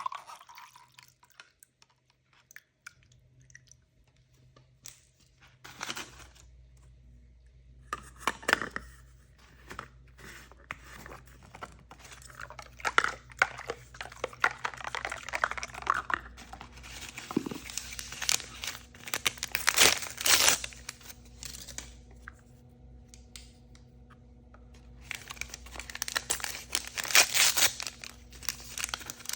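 Surprise-toy packaging being opened by hand: plastic wrapping crinkling and tearing in three bouts, with scattered small clicks and taps between them.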